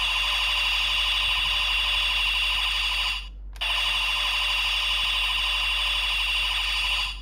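Electronic sound effect from a toy Ultraman Trigger transformation device (DX GUTS Sparklence), played through its small speaker. It is a sustained, buzzing, alarm-like tone held for about three seconds, breaks off briefly, then comes back for about three more.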